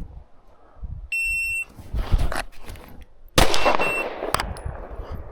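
Electronic shot timer gives a half-second start beep, and about two seconds later a handgun fires a single loud shot that rings off. This is the timed start and first shot of a concealed-carry draw.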